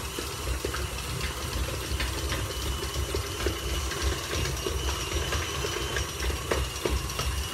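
KitchenAid Artisan stand mixer running, its dough hook kneading a soft, sticky dough in the steel bowl: a steady motor hum with a steady high whine and scattered light knocks.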